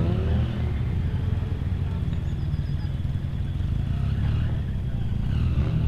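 Side-by-side UTV engine running at low revs as it crawls over rock. The revs rise briefly at the start and again near the end.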